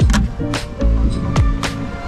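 Background music with a steady beat: deep bass thumps and sharp drum hits under held synth notes, with sliding bass notes that drop in pitch.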